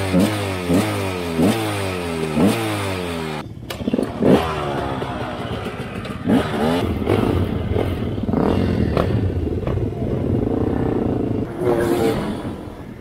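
Enduro motorcycle engine blipped several times, each rev jumping up and falling back. After a cut the engine runs on under way, its revs rising and falling, with some clatter.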